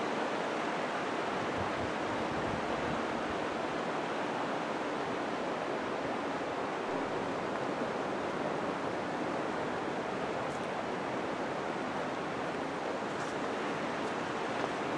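Steady, even rushing noise of the kind running water or wind makes, with no rise and fall.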